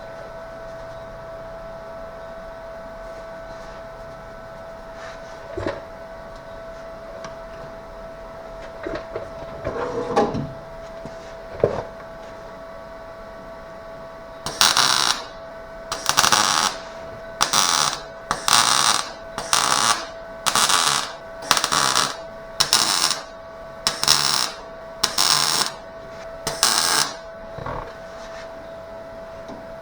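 A series of short welding bursts on the sheet-metal taillight panel: about a dozen tack or stitch welds, one roughly every second, starting about halfway through. Before them come a few knocks and clicks of handling, over a steady high hum.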